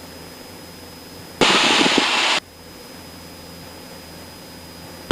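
Cessna 172 cockpit audio as heard through the headset intercom: a steady low engine drone. About a second and a half in, a loud one-second burst of rushing noise cuts in and out abruptly.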